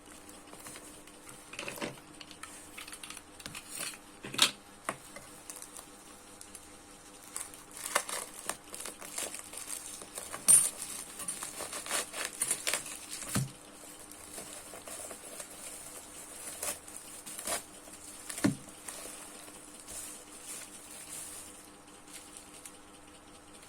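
Small hard objects being handled on a table while unpacking a parcel of mobile phones: scattered clicks, taps and light knocks, with a handful of sharper knocks.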